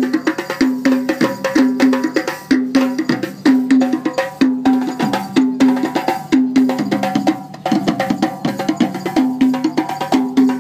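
Live hand drumming on djembes and a tall barrel drum: a fast, steady rhythm of sharp slaps and deeper pitched drum tones.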